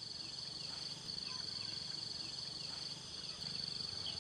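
A chorus of insects, crickets trilling in a steady high-pitched band that dips briefly twice, with faint scattered chirps beneath.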